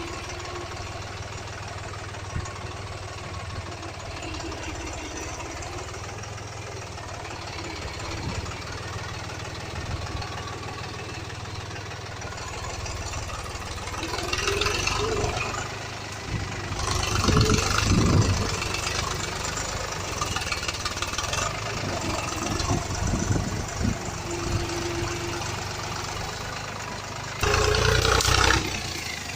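Small farm tractor's engine running steadily with a knocking note, louder for a few seconds in the middle and again near the end.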